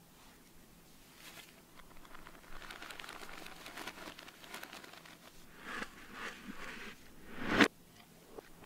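Plastic seasoning pouch crinkling as it is handled and shaken over a raw chicken, in scattered rustles. Near the end, a louder sudden noise swells and cuts off abruptly.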